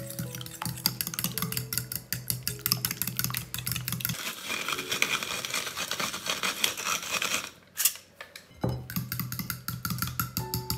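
A fork whisking eggs and sour cream in a glass bowl, the tines clicking rapidly against the glass. It pauses briefly about eight seconds in. Soft background music plays at the start and again near the end.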